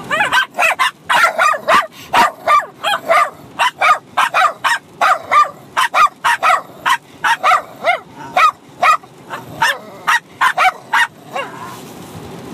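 A Bichon Frise puppy and another small dog barking at each other in a rapid, continuous volley of about three barks a second, stopping about a second before the end. A steady car road rumble runs underneath.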